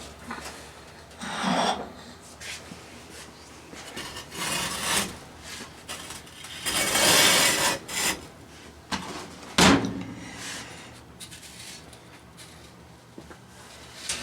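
Scraping and rubbing handling noises in a few separate bursts, the longest about seven seconds in, followed by one sharp knock about nine and a half seconds in.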